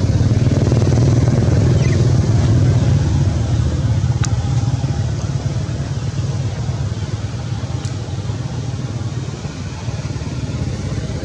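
A motor engine running steadily with a low rumble, easing off slightly a few seconds in, with a couple of faint sharp clicks.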